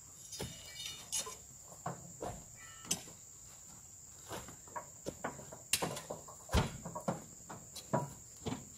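Irregular knocks and thuds of oil palm fruit bunches being speared with a long spiked pole and heaved onto a truck's load, several sharp hits in the second half. A steady high insect drone runs underneath.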